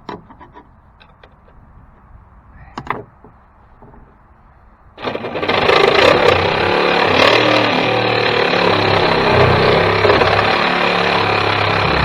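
A few light clicks and knocks. About five seconds in, a reciprocating saw (Sawzall) starts abruptly and runs steadily, cutting with a pulsing low end.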